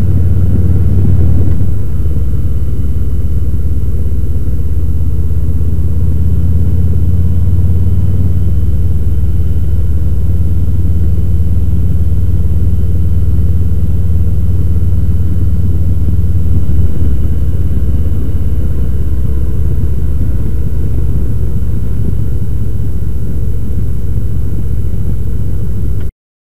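Harley-Davidson touring motorcycle's V-twin engine running at road speed under wind rush on the camera microphone, a steady low rumble. It cuts off suddenly near the end.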